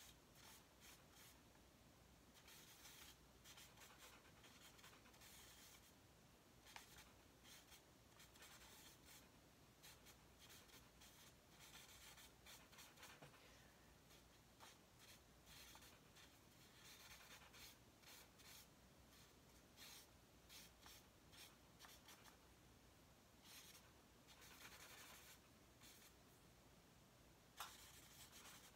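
Faint scratching of a charcoal stick on drawing paper, in repeated bursts of quick strokes, with a sharp tap about 7 s in and another near the end.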